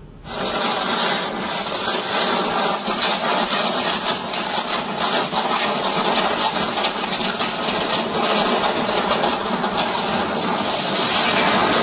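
Short circuit on overhead power lines making a sustained electrical arc: a loud, continuous crackling hiss that cuts in just after the start and goes on without a break.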